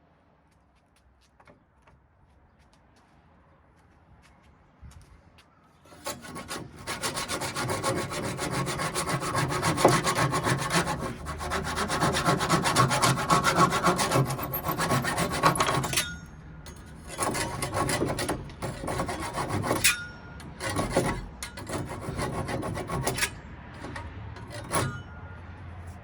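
Sanding the cut corner of a live-edge wooden slab: a loud, steady rasp of abrasive on wood that starts about six seconds in and runs for about ten seconds, then comes in shorter bursts with pauses.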